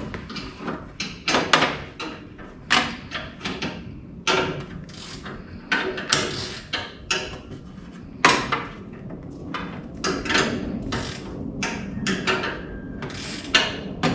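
Combination wrench clinking against a bolt and the steel tube frame of a Bandolero race car as the bolt is worked loose: irregular sharp metal clicks and knocks, several a second at times.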